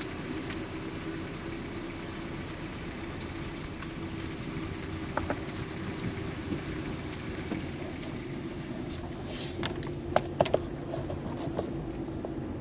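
Steady cabin noise of a car rolling slowly: engine hum and tyre rumble on the park road. Three quick, sharp clicks come about ten seconds in.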